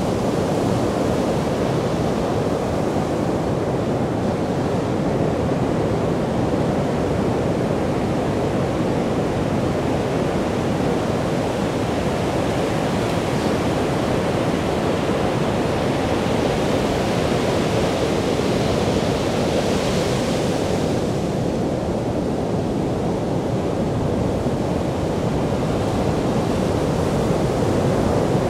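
Sea surf breaking and washing up a sand beach: a steady rushing wash, with one wave breaking brighter and louder about two-thirds of the way through.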